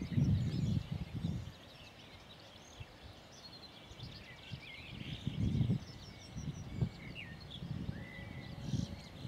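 Songbirds chirping and singing in short phrases, while gusts of wind buffet the microphone in irregular low rushes, loudest about a second in and again around the middle and near the end.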